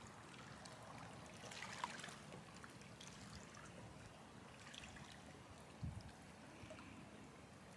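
Faint trickling water, with a few light clicks and a soft low knock about six seconds in.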